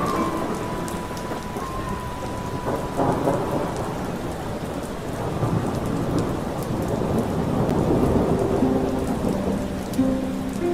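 Steady heavy rain with low rolling thunder. A few soft sustained musical notes sound faintly underneath, more of them near the end.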